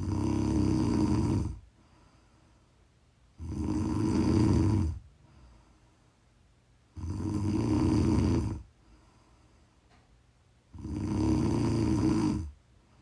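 A woman snoring: four loud snores, one about every three and a half seconds, each lasting about a second and a half, with quiet gaps between.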